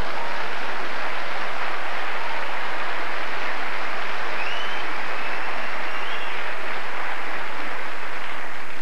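Live audience applauding and laughing steadily.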